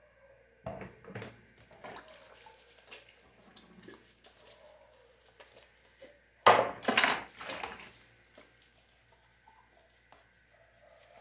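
Dishes being washed by hand in a kitchen sink: glasses and a pot clink and knock, with a few sharp knocks about a second in and a louder clattering scrub of about a second and a half, about six and a half seconds in.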